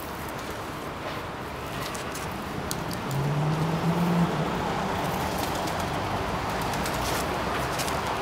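A motor vehicle's engine running close by on the street; about three seconds in it grows louder and its note climbs briefly, then it carries on more steadily.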